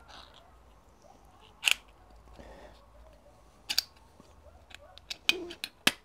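Small metal tin of liver pâté opened by its ring-pull lid: a sharp metallic click as the lid breaks open, then a few more sharp clicks and taps of tin and lid, two close together near the middle and two near the end.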